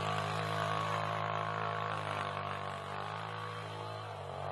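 An engine running steadily at one even pitch, a low hum with many overtones.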